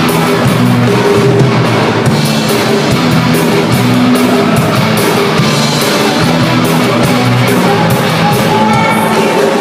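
A live rock band playing loud: electric guitars, bass guitar and a drum kit, with cymbals and drums keeping a steady beat.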